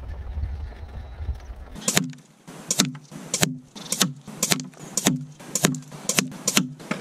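Wind rumbling on the microphone for under two seconds, then a quick run of sharp smacks, about two a second, each with a short low ring: Precision Ballistics Mako .177 slugs striking the paper target and its board.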